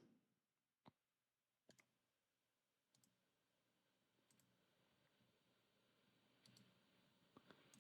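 Near silence: faint room tone with a few scattered soft computer mouse clicks.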